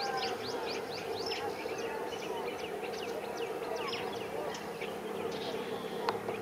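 Small birds chirping in a chorus of quick, falling calls over a steady low hum, with a single sharp click about six seconds in.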